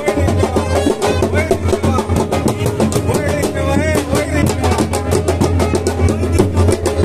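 Dhol drum beaten live with sticks, playing a fast, steady rhythm.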